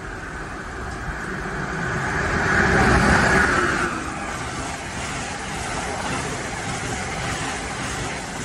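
Amtrak passenger train of Amfleet coaches passing through the station at speed. The noise builds to its loudest about three seconds in as the head of the train goes by, then holds as a steady rush of coaches and wheels on rail.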